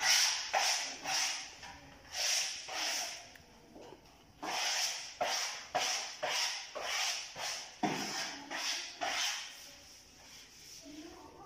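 Wallpaper being smoothed onto a wall: short rubbing strokes, about two a second, in three bursts, the longest in the middle, stopping near the end.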